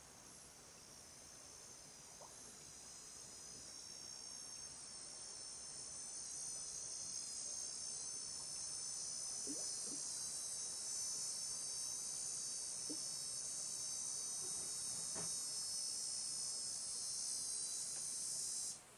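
High, shrill insect drone that swells in loudness over the first several seconds, holds steady, then cuts off abruptly near the end.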